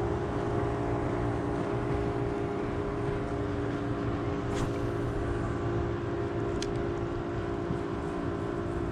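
Motorboat engine running with a steady drone. Two short clicks come in the second half.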